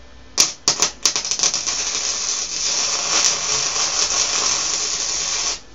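Lincoln 125 HD flux-core wire-feed welder striking an arc: a few short sputtering starts in the first second, then a steady crackling bead for about four and a half seconds that cuts off suddenly.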